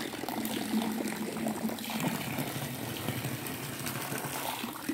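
Water in a pool trickling and splashing: a steady wash of many small splashes.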